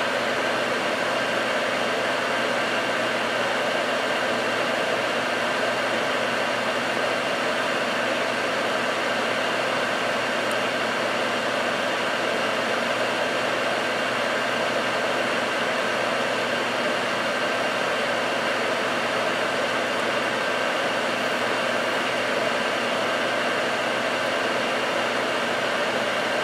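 Soldering fume extractor's fan running steadily: an even rush of air noise with a faint steady whine in it.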